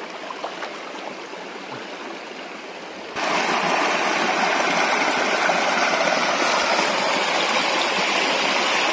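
Shallow stream running over stones. About three seconds in it gives way abruptly to a louder, steady rush of water.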